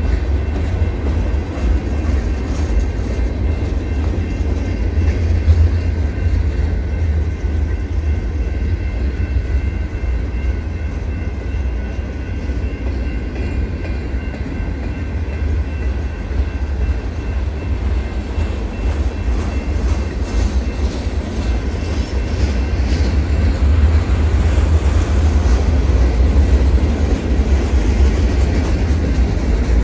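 Freight cars (covered hoppers and boxcars) rolling past, a steady heavy rumble of steel wheels on rail that grows a little louder in the last several seconds.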